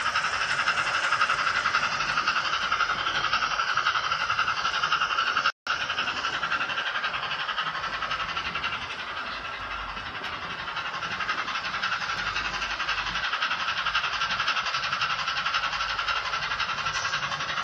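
Steam-locomotive sound from the Zimo MS450R sound decoder in a Hornby OO-gauge A3 Pacific model, played through its small 28 mm speaker as the model runs: continuous steam chuffing, thin with little bass. The sound cuts out completely for a moment about five and a half seconds in.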